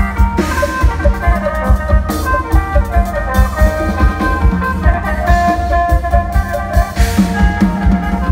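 Khaen, the Isan bamboo free-reed mouth organ, playing a melody over its sustained drone chords, backed by a steady drum-kit beat.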